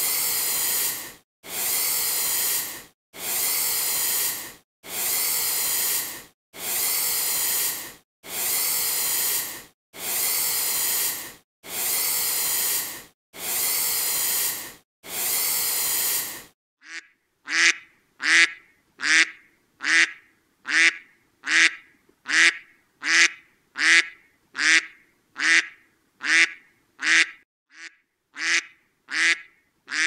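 Iguana hissing: about ten long, even hisses, each a little over a second, with short breaks between. About 17 seconds in this gives way to a duck quacking, short quacks repeated at a little under two a second.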